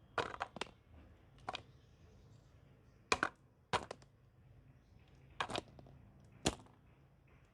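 Knife cutting through a bar of strawberry pulp soap: short, crisp crunches and cracks as the blade snaps through. A quick cluster comes at the start, then about five single or double strokes spaced a second or two apart.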